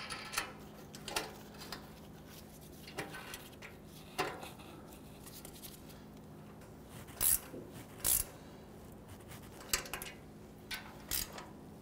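Scattered light metallic clicks and clinks of exhaust flange bolts and nuts being fitted and snugged up with hand tools at the joint of a new catalytic converter, with two sharper clanks about seven and eight seconds in.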